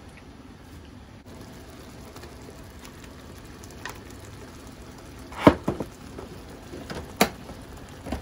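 Thick curry simmering and reducing in a square aluminium mess tin over a gas cartridge stove: a steady low hiss, and from about five seconds in several sharp bubble pops. The loudest pop comes about five and a half seconds in and another about seven seconds in.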